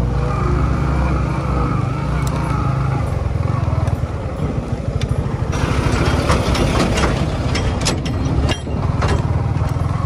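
Motorcycle engine running as it is ridden. About halfway through, a rush of noise and a string of sharp knocks and rattles join it, as the bike goes over a rough off-road track.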